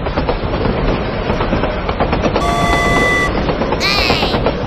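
Train running along rails with a steady clatter, and a horn sounding for about a second midway. A short swooping tone follows near the end.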